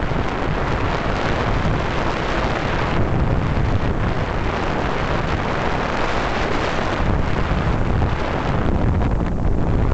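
Wind rushing over the microphone of a skier's camera during a downhill run, with the hiss of skis on packed snow; the hiss swells and eases every few seconds with the turns.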